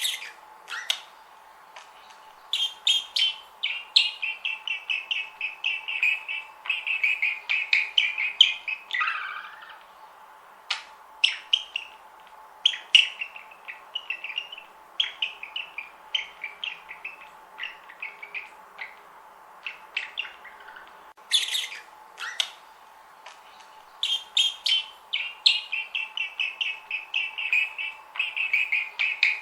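Budgerigars chattering and warbling in fast runs of short chirps, coming in spells of a few seconds with brief pauses between, over a faint steady hum.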